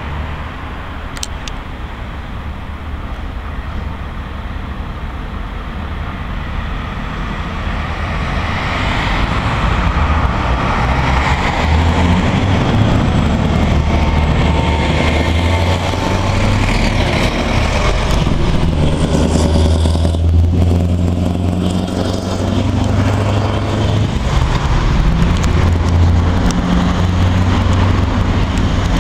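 Scania R500 16-litre V8 diesel truck approaching and driving past, its deep engine note growing louder about a third of the way in, clattering.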